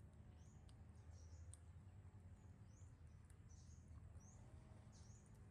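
Near silence with about six short, faint, high-pitched chirps, each a quick rising note, spaced roughly half a second to a second apart, over a low steady hum.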